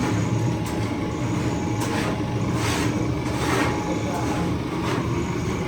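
A steady low mechanical hum with a thin steady whine, overlaid by short hissing swishes that recur about once a second.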